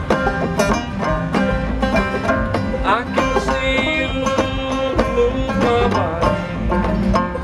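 Clawhammer banjo playing an old-time tune with other string instruments and a bass line, an instrumental passage without singing; a note slides upward about three seconds in.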